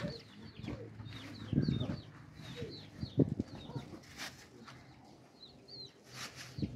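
Birds chirping over and over, short falling chirps, with a few soft knocks and a plastic bag rustling around four and six seconds in.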